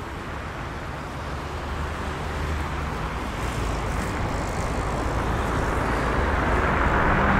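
Vehicle noise in the background, a steady rumbling hiss that slowly swells louder, as of a vehicle approaching.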